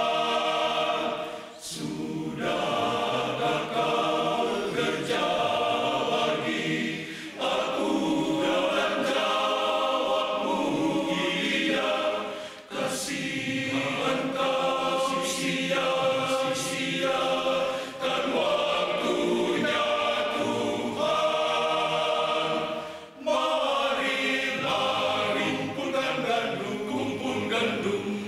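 Men's choir singing, in long phrases broken by brief pauses about every five seconds.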